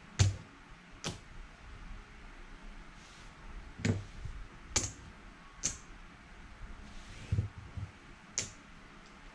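Casino chips clicking as they are picked up, stacked and set down on the craps table, about seven sharp clicks spaced irregularly a second or so apart.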